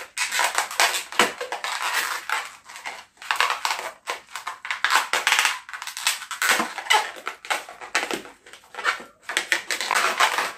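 Inflated latex modelling balloon squeaking and rubbing under the fingers as it is twisted and a section is pushed into place, in several spells with short breaks between.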